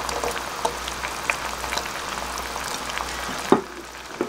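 Beef simmering in soy sauce in a stainless steel saucepan, bubbling and crackling with many small ticks as whole garlic cloves drop in. About three and a half seconds in, a metal spoon knocks sharply against the pot, and the bubbling is quieter after it.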